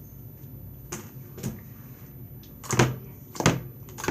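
Sharp plastic clacks and knocks from a slime container being handled: a few light ones, then two loud ones near the end.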